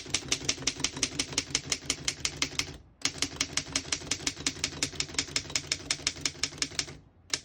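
Manual keystrokes on a 1920 Underwood No.5 desktop typewriter: the type bars strike the platen in a fast, even run of about seven a second, with two brief pauses.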